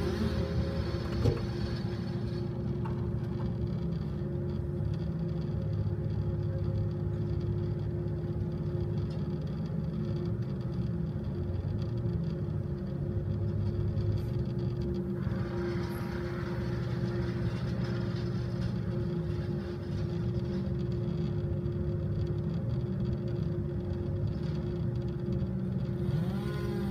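Bucket truck's engine running steadily, powering the aerial lift, with a stretch of added hiss in the middle.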